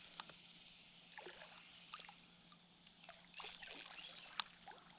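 Faint splashing and small ticks of water in a shallow creek, a little louder for about half a second around three and a half seconds in.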